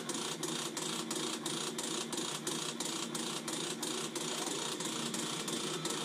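Navien NCB-240 combi boiler running with a fast, even mechanical rattle of several pulses a second. This is the abnormal loud vibration noise the unit makes after start-up.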